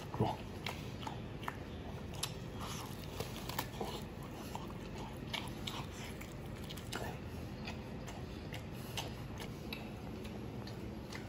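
A man eating a braised pork knuckle held in both hands, biting off meat and skin and chewing with his mouth full; irregular small clicks and smacks, with a louder one about a quarter second in.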